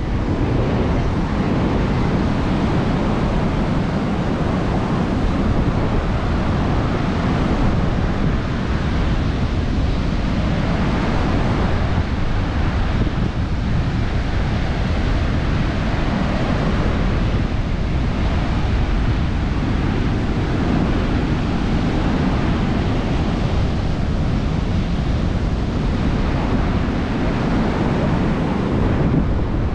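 Surf washing in and out with slow swells, under a steady rumble of wind buffeting the microphone.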